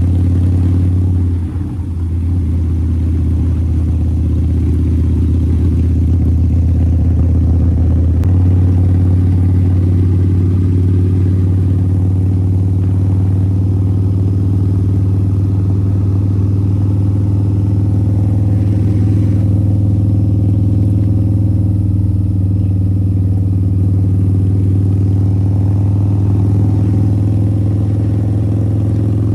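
Harley-Davidson V-Rod's 1250cc liquid-cooled V-twin running steadily under way. It dips briefly about a second and a half in, and its note changes and holds steady from about eight seconds in.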